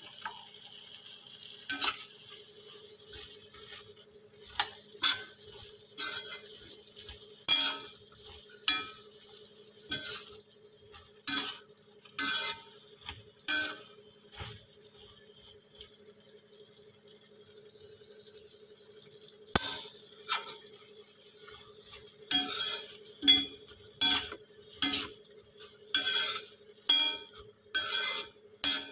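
Yam cubes sizzling in a kadai while a perforated metal skimmer stirs them, scraping and knocking against the pan in repeated strokes about once a second. The strokes pause for a few seconds midway while the frying keeps hissing.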